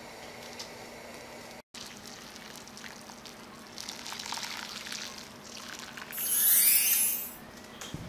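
Hot broth poured into a bowl of beef pho, a liquid pour that grows to its loudest, brightest hiss about six to seven seconds in. Before it comes a steady hum from the gas stove burner under the pot.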